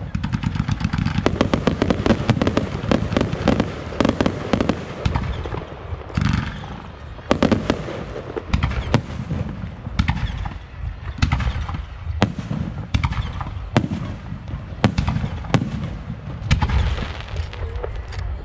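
Aerial fireworks going off: a dense run of rapid crackling for the first few seconds, then single sharp bangs about once a second as shells burst.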